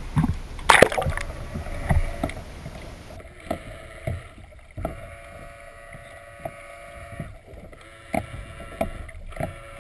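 Water splashing as a camera goes under the lake surface about a second in, then muffled underwater sloshing and irregular knocks against the submerged camera housing. A steady hum sets in about three seconds in.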